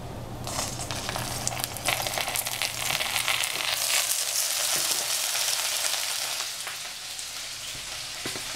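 Cooking oil sizzling and frying in a hot pan, just poured in. The hiss starts about half a second in, grows loudest midway and eases toward the end, with a few light clicks.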